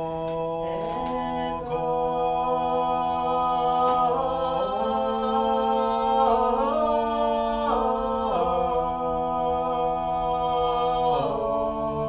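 A small group of voices singing a cappella, holding long notes together in chords and moving to a new chord every couple of seconds.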